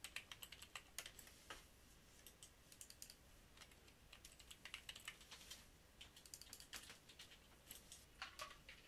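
Faint computer keyboard typing: quick, irregular keystrokes in short runs with brief pauses between them.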